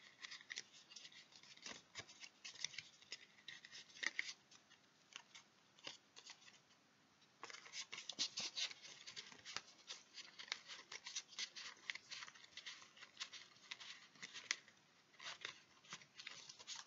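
A deck of tarot cards being shuffled by hand: a faint, quick run of crisp card clicks and slides, pausing for about a second midway.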